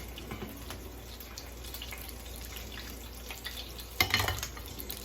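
Meat-filled corn tortilla tacos deep-frying in hot oil: a steady bubbling sizzle. A sudden short clatter about four seconds in.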